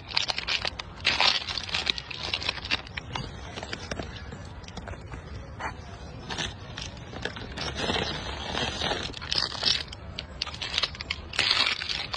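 Rhesus macaque biting, tearing and chewing soft bread rolls close up: an irregular run of crackly, scrapy eating and handling noises.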